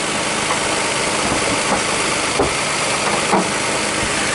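Nissan Xterra's 4.0-litre V6 idling steadily, heard from over the open engine bay, with a few short clicks over it.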